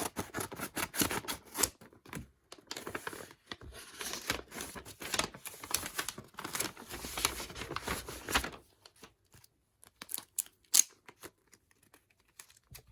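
Crinkling, rustling and tearing of packaging as photocards are unwrapped and handled: a dense run of rustles and small clicks for about eight seconds, then a few scattered clicks with one sharper click near the end.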